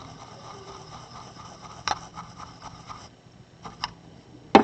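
Soldering iron tip being wiped clean: a soft, steady scraping for about three seconds, then a few light clicks and a sharper tap near the end.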